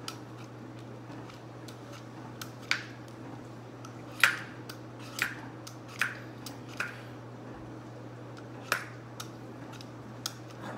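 Hand-held vegetable peeler scraping the skin off an apple in short strokes, about half a dozen sharp scrapes and clicks, the loudest about four seconds in, over a steady low hum.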